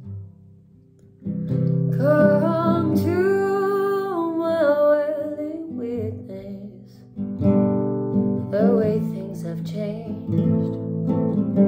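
Acoustic guitar strumming the chords of a slow song, coming back in after a brief lull about a second in, with a woman's voice singing long, wavering notes over it.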